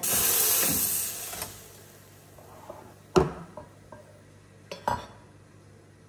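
Espresso machine letting out a loud hiss of venting pressure for about a second and a half as the shot is stopped at the group. Then a sharp clack of crockery set down about three seconds in, and two lighter clinks near five seconds.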